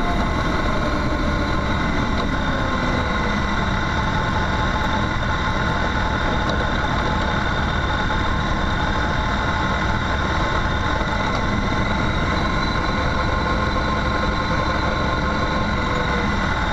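Motorcycle engine running steadily while riding along a gravel track, over a constant rush of noise. Its pitch holds even, with no shifting or revving.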